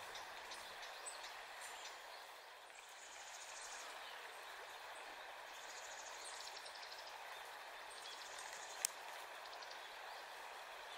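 Quiet outdoor background with two stretches of high, rapidly pulsing chirps, each a couple of seconds long, and a single sharp click near the end.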